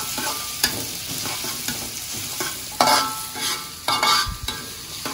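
Food frying in a pan with a steady sizzle, stirred with a utensil that scrapes and knocks against the pan every second or so.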